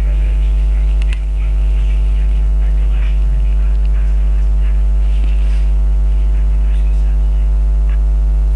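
Loud, steady electrical hum with a buzzy stack of overtones, unchanging throughout, with a brief click about a second in.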